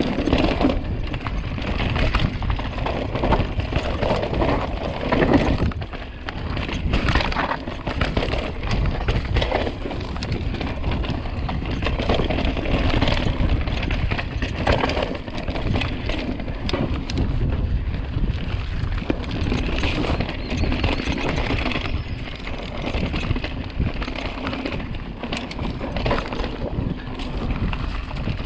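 Canyon Spectral full-suspension mountain bike ridden fast down a dirt and rocky singletrack: tyres rolling and crunching over dirt and rocks, with frequent knocks and rattles from the bike, over a steady rumble of wind on the microphone.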